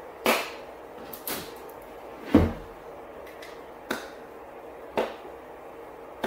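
Sharp clicks and knocks from hand work fitting a pickup's third brake light at the back of the cab roof: six of them, about one a second, the loudest about two and a half seconds in with a dull thump.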